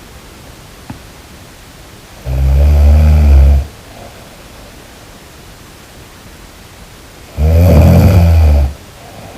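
Snoring: two long, loud, low rattling snores about five seconds apart, each lasting over a second, with quieter breathing between them.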